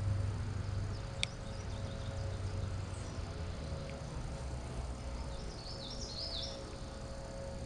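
Outdoor ambience with a low steady hum, a single sharp click about a second in, and a bird calling a quick run of high chirps about six seconds in.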